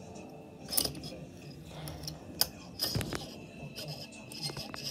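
Metal binder clips clicking and clinking as they are handled and fitted together, with a few sharp clicks and one louder click with a thud about three seconds in.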